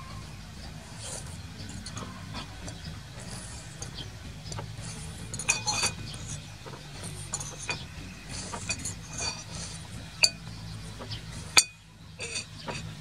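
Metal spoon clinking and scraping against a ceramic bowl while noodles are eaten, in scattered sharp clinks, the loudest near the end.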